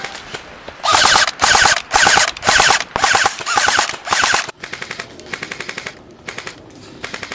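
Airsoft electric gun firing six short full-auto bursts in quick succession, a fast mechanical rattle of the gearbox and piston, over the first four and a half seconds. Quieter, shorter bursts of fire follow.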